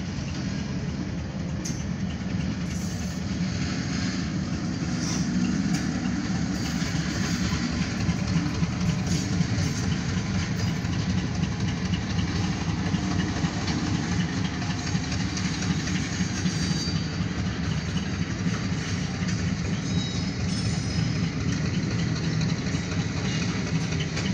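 Freight train of covered grain hopper cars rolling past: a steady rumble of wheels on rail with scattered sharp clicks.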